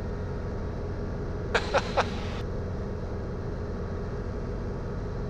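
Guimbal Cabri G2 helicopter in cruise flight, its rotor and four-cylinder Lycoming piston engine making a steady drone as heard through the cockpit intercom. About one and a half seconds in, there is a brief short vocal sound on the intercom.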